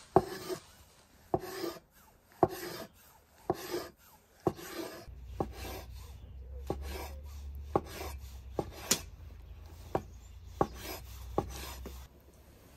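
Chef's knife slicing through a soft cooked mushroom and knocking on a wooden cutting board, one stroke at a time. The first strokes drag briefly through the flesh, and the later ones are crisp knocks about once a second. A low steady hum sits underneath from about five seconds in until near the end.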